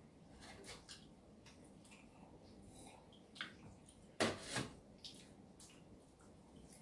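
Faint sounds of bread being torn apart and eaten: small clicks, smacks and crackles, with one sharper double crackle a little over four seconds in.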